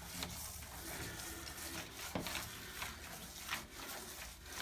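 A trowel-like smoothing tool drawn across wet paint on a door: a faint wet scraping and smearing, with a few soft knocks.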